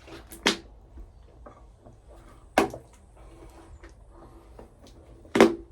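Three sharp knocks, about two and a half seconds apart, with fainter clicks and taps in between.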